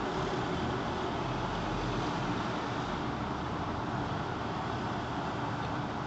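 Steady road traffic noise from a busy multi-lane city intersection: an even wash of passing cars with no single sound standing out.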